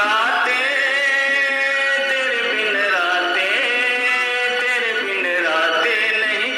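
A man singing a Hindi song in long held notes that glide between pitches, with music behind.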